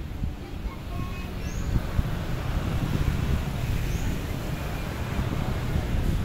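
Distant jet airliner's engines running as it moves along the runway, a low rumble that grows gradually louder, mixed with wind noise. A short high chirp repeats about every two seconds.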